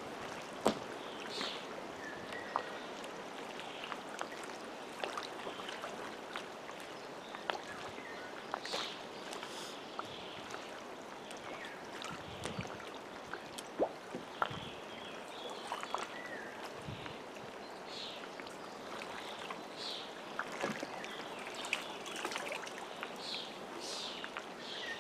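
Shallow lake water lapping and sloshing around a wading angler's legs, a steady gentle wash. Short high bird chirps come now and then, and there are a few light clicks.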